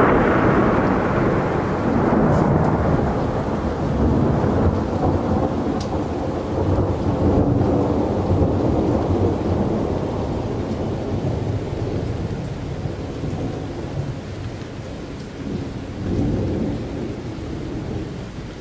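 Thunderstorm sound effect: a long rolling thunder rumble over steady rain, loudest at the start and slowly dying away, with a fresh swell of thunder near the end.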